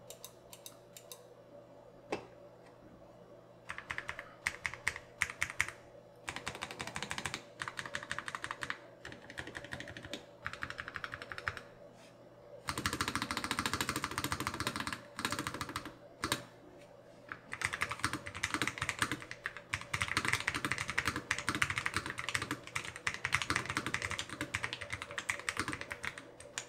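Typing on a LoFree Flow gasket-mounted low-profile mechanical keyboard with Kailh Phantom tactile POM switches: crisp key clicks with a little pop on release. The keystrokes come in bursts with short pauses, starting a few seconds in and running dense and continuous over the second half.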